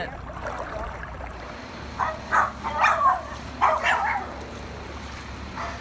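A dog barks in a quick run of five or six short barks, between about two and four seconds in.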